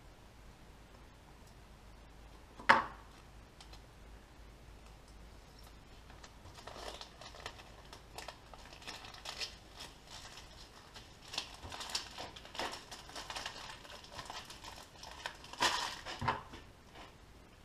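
A single sharp knock about three seconds in, then a long run of crinkling and rustling with small clicks as sheet adhesive vinyl and its backing paper are handled and peeled, loudest near the end.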